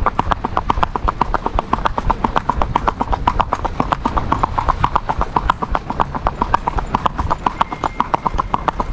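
Horse's hooves striking an asphalt road in a fast, even, rapid-fire gait, about eight to nine hoofbeats a second.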